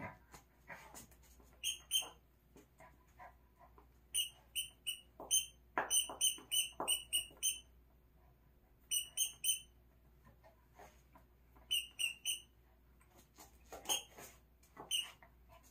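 Rubber squeaky dog toy squeaking in quick runs of two to six as a dog bites down on it, with scratching and rustling of a floor mat between the runs.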